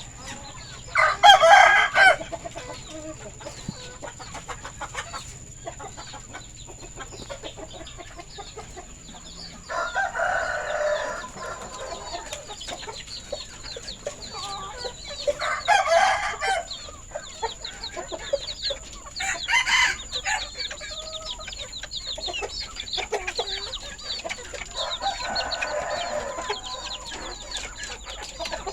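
Village chickens clucking and calling, with five loud calls about a second long spaced through the stretch over a constant chatter of smaller, higher calls.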